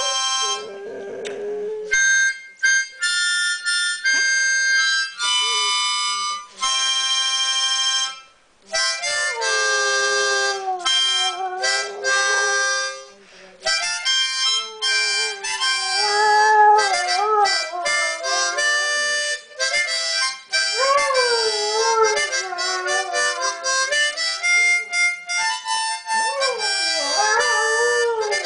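A dog howling along to a harmonica, its long wavering howls sliding up and down in pitch against the harmonica's steady chords. The dog breaks off for several seconds near the start while the harmonica plays on alone, then howls almost without pause.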